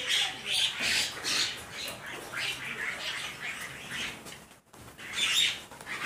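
A flock of common mynas calling, many short harsh chattering calls overlapping one another, with a brief break about three-quarters of the way through.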